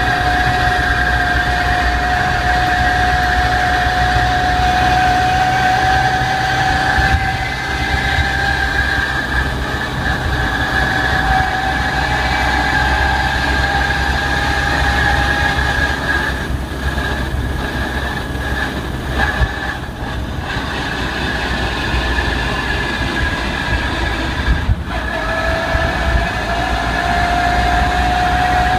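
Car drivetrain whine from the gearbox or clutch while driving under acceleration, over the low rumble of the car: a steady high whine that climbs slowly in pitch, falters in the middle, cuts out about 25 seconds in, then comes back lower and climbs again. The noise is only there with the clutch released and the car accelerating, which the owner takes for a gearbox or clutch fault.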